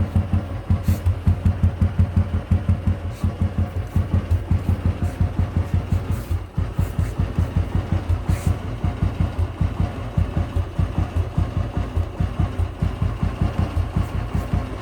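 Royal Enfield Bullet Standard 350's single-cylinder engine idling with an even, steady thump, about four to five beats a second.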